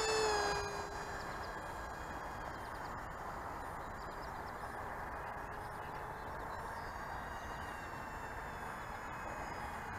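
Motor of a radio-controlled model airplane whining with a falling pitch and fading away within the first second, followed by a steady rush of air with a faint tone under it.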